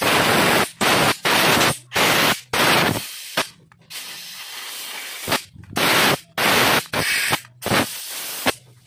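Compressed air from a compressor blow gun hissing in short blasts, about a dozen in quick succession with a longer, quieter hiss partway through, as it blows dirt out of the holes and jets of a scooter carburetor.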